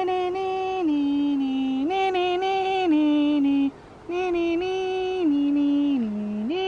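A single voice singing long held notes in two phrases, with a short break just under four seconds in. Each phrase moves between a few notes.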